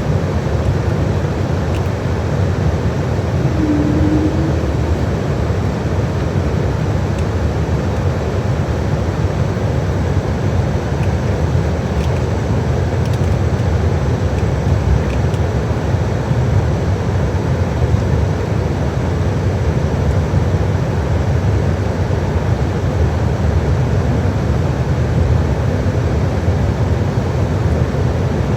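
Steady low rumble of an airliner cabin aboard an Embraer 195-E2 on the ground, with a short low hum about four seconds in.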